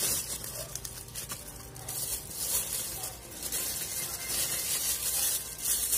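Rustling and crackling as the camera body and its packaging are handled, over a steady hiss and low hum.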